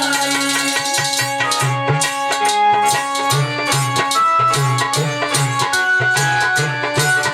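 Instrumental interlude of Indian folk devotional music: a hand drum plays a steady rhythm under a sustained melody of held notes.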